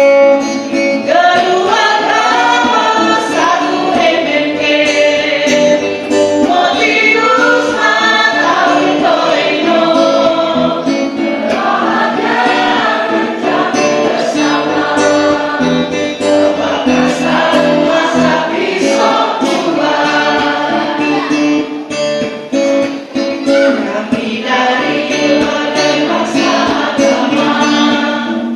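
A mixed choir of men and women singing a song together, with instrumental backing.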